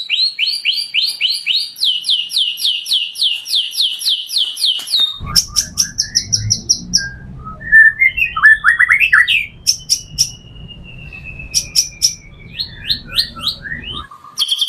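White-rumped shama singing a varied song full of mimicked phrases: a fast run of repeated downslurred notes for about five seconds, then a mix of short whistles, clicks and a long, slowly falling whistle.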